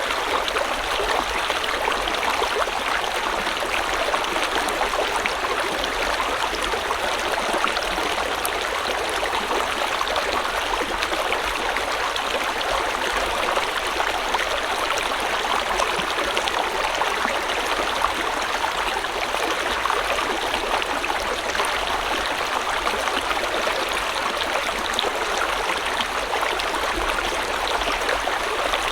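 Shallow river or stream running steadily, a continuous rushing with fine bubbling and splashing.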